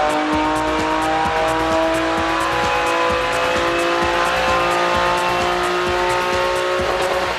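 Nissan 350Z's 3.5-litre V6, catalytic converters removed, running hard on a chassis dyno, its note climbing slowly and steadily through a long power run and breaking off near the end.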